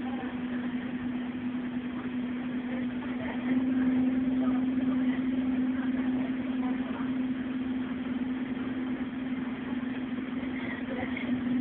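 Scania OmniCity bus's 5-cylinder 9-litre Euro 5 EGR engine, heard from inside the passenger saloon: a steady hum at one unchanging pitch that gets louder about three and a half seconds in.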